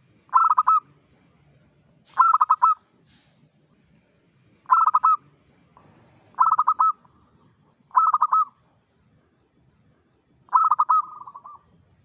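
Zebra dove (perkutut) cooing: six short phrases of quick staccato coo notes, each about half a second long and a second or two apart, the last one drawn out into a fading trill.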